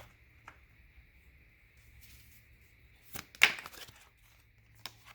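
A brief rustle of cards being handled about three and a half seconds in, with a few light clicks, over a faint steady hum.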